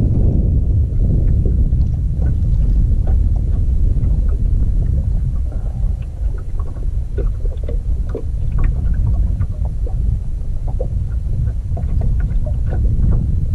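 Gusty wind buffeting the microphone in a steady low rumble, with scattered light clicks and taps from handling on the boat.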